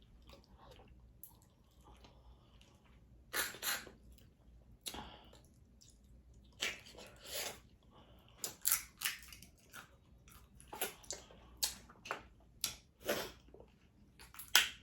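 Close-miked chewing and mouth sounds of someone eating a leftover seafood boil, in short irregular bursts with pauses between.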